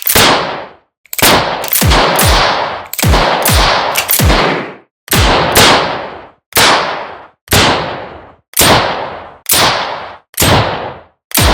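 Revolver gunshots fired one after another, about fifteen shots at an uneven pace, some close together and some nearly a second apart, each with an echoing tail.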